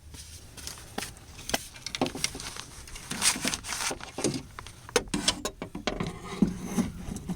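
Scattered clicks, taps and light knocks of hand work on a car's rear window regulator inside the door.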